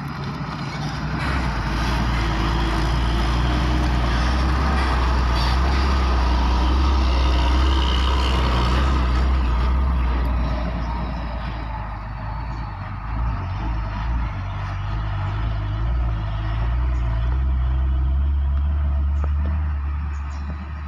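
Hino dump truck driving slowly over a rough, rocky dirt haul road: a deep steady diesel engine drone with a noisy rumble of tyres on gravel. It is loudest through the first half as the truck comes past, then eases off and swells again near the end as it pulls away.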